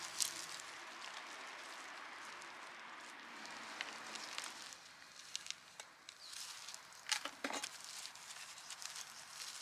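Soft rustling and crackling as gloved hands firm potting soil around bedding plants in a pot. In the second half come sharper scrapes and clicks as a metal soil scoop pushes more soil in around the plants.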